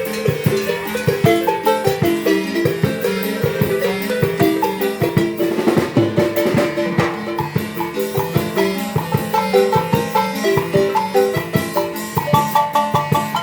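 Marimba band playing a lively tune: rapid mallet notes on the wooden bars over a steady drum beat.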